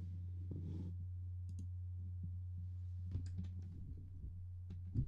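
Computer mouse clicks over a steady low hum: a few soft clicks about three seconds in, then one sharper, louder click near the end.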